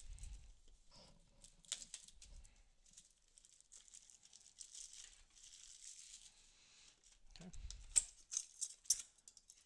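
Cellophane shrink-wrap crinkling and tearing as it is peeled off a cardboard trading-card box, followed near the end by sharper clicks and taps of the cardboard box being opened.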